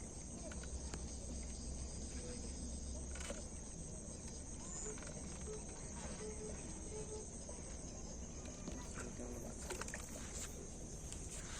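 Steady high-pitched trilling of insects, with a low rumble in the first few seconds and a few clicks near the end.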